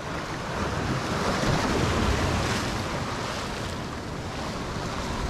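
Sea waves washing and breaking against the boulders of a rocky shore close by. The surf swells louder about a second in and eases off again in the second half.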